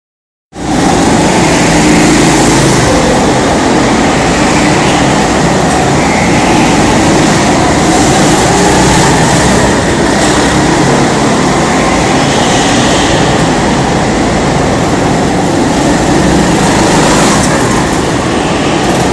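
Several rental go-kart engines running together in an indoor hall, a loud steady mechanical drone that starts about half a second in.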